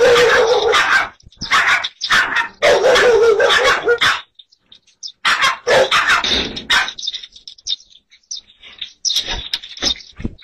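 Small dog barking and yelping in four loud bursts over the first seven seconds, then faint clicks and knocks near the end.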